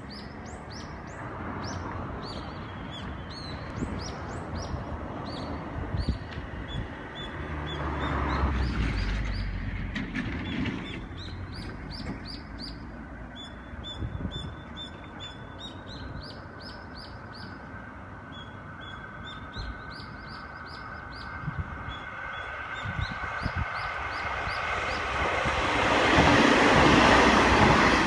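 JR KiHa 40-series diesel railcar approaching along the line, its engine and wheel noise growing steadily louder until it passes close by near the end. Birds chirp repeatedly throughout, and a low rumble swells and fades about 8 to 10 seconds in.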